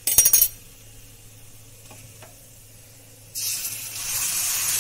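A brief metallic clatter of utensils, then about three and a half seconds in a loud, steady sizzle starts suddenly as milk is poured from a steel tumbler into the hot roasted atta, ginger and jaggery in the kadhai.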